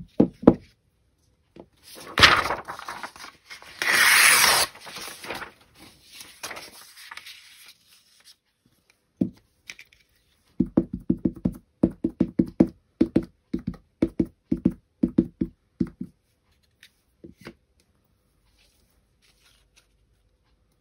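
Sheet of copy paper being torn by hand for a few seconds, with two louder rips, to make a torn-edge mask. Later, a quick run of light knocks, about three a second for roughly five seconds, as an ink pad is tapped onto a clear acrylic-mounted rubber stamp to ink it.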